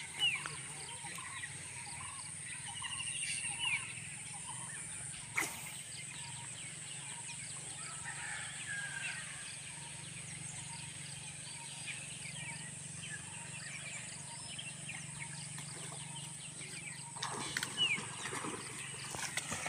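Birds chirping and calling, many short notes, over a steady high-pitched whine and a faint low hum; one sharp click about five seconds in.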